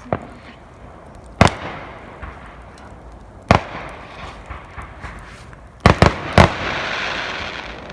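Fireworks going off: single sharp bangs every second or two, then a quick string of three bangs about six seconds in, followed by about a second of crackling hiss.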